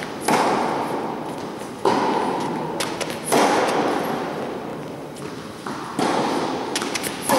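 Tennis balls struck by rackets and bouncing on an indoor court, a sharp hit about every second and a half, each ringing on in the hall's long echo.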